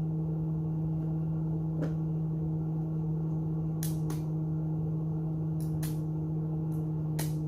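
Welding machine humming steadily at idle, with a few light, sharp clicks scattered through the hum.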